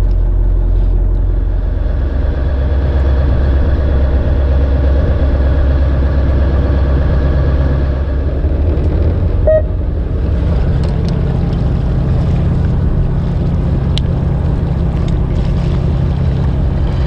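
Fishing boat's engine running steadily under way, a loud low hum; its note changes about ten seconds in.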